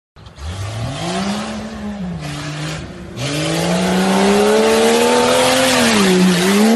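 Off-road truck engine revving hard as the truck accelerates along a dirt trail toward the listener. The pitch climbs, drops back about two seconds in, then climbs again, with a loud rushing noise building as the truck gets close.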